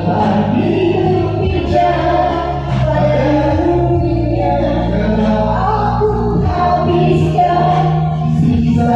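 A group of voices singing a song together over musical accompaniment, holding long notes.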